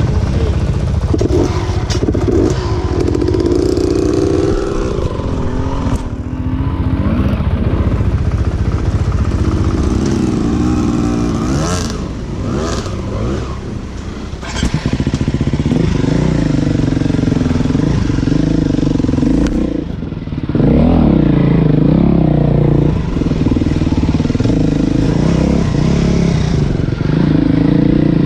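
Dirt bike engine running under constantly changing throttle on a rough trail, its pitch rising and falling, with sharp clacks from the bike over rocky ground. The engine eases off briefly about halfway through and again about two-thirds in, then pulls hard again.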